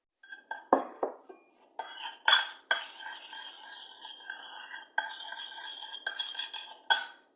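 A utensil clinking and scraping against a small dish while stirring baking soda into a few drops of water to make a paste. There are a few sharp clicks in the first couple of seconds, then steady scraping with a ringing dish tone.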